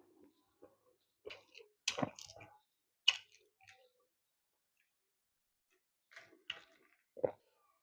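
Close-up eating sounds of someone eating puri (fried flatbread) with beef liver curry: scattered short clicks and smacks of chewing, loudest about two and three seconds in and again in a cluster near the end.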